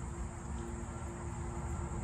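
Distant leaf blower running steadily, heard as a faint even drone over a low rumble.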